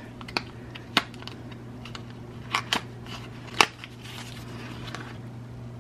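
Small paperboard cosmetics carton being opened by hand: several sharp clicks and scrapes of the cardboard flaps, then a soft rustle about four seconds in as the insert slides out.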